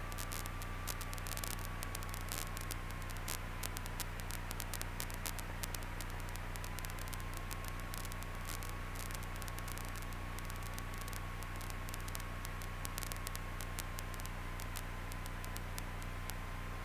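Steady hiss with frequent crackles of static, a low steady hum and a faint thin tone that drifts slightly in pitch: the noise of a light aircraft's cockpit audio feed.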